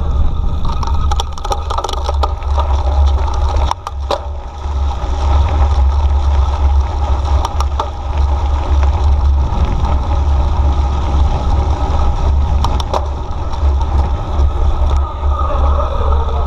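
Wind rushing over the microphone of a camera on a mountain bike ridden fast along a gravel path, with tyre noise and a few sharp knocks as the bike rattles over bumps.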